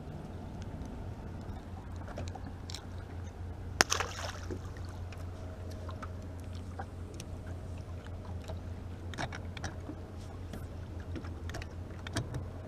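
Bow-mount electric trolling motor humming steadily, with scattered small clicks and one sharp knock about four seconds in.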